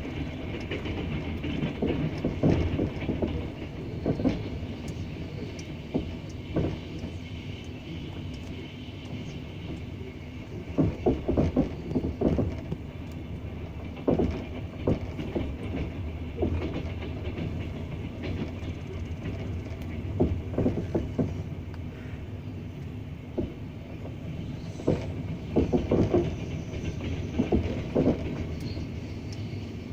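Wheels of a double-deck passenger train clattering over rail joints: groups of sharp clacks every few seconds over a steady rolling rumble.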